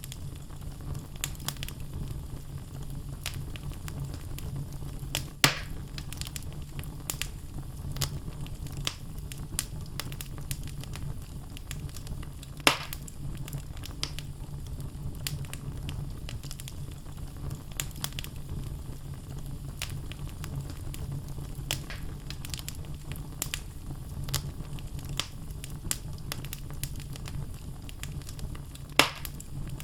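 Wood fire burning in a fireplace: logs crackling with many small snaps over a steady low rumble. Three louder pops stand out, about five seconds in, near the middle, and near the end.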